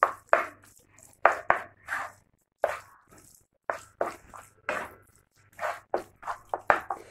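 A spoon stirring and mixing fried eggplant with tomato and spices in a frying pan: irregular knocks and scrapes of the utensil against the pan, about two a second.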